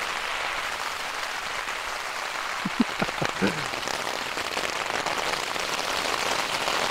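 Heavy rain drumming on the taut, thin single-skin Dyneema fly of a Durston X-Mid Pro 2 tent, heard from inside as a dense, even patter that grows a little louder toward the end. It is really loud because the fabric is taut, very thin and only a single layer.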